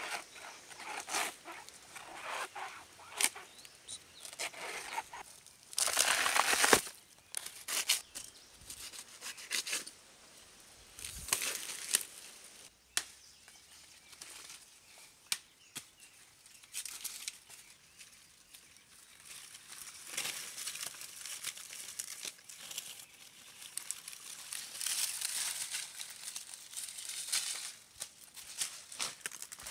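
Dry banana leaves and stalks rustling, crackling and tearing in irregular bursts as a banana plant is cut with a knife and its bunch is handled, with footsteps crunching through dry leaf litter. The loudest burst of rustling comes about six seconds in.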